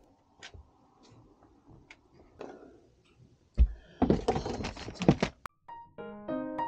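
Scattered light clicks and knocks, a single thump, then a second or so of rustling and clattering, like gear being handled in a small room. Piano music begins near the end.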